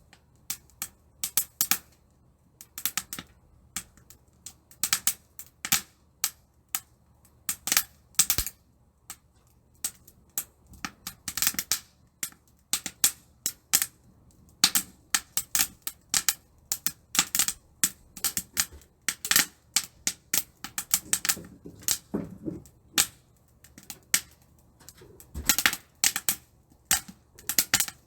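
Wood fire crackling and popping in a titanium camp stove: irregular sharp snaps in clusters of several a second.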